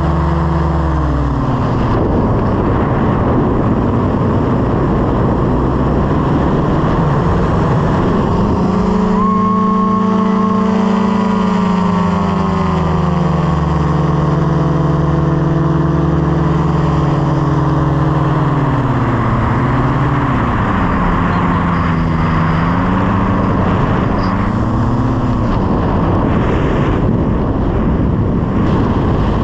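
Small propeller aircraft engine running under wind rush. Its pitch drops, rises and falls again several times as the throttle is changed.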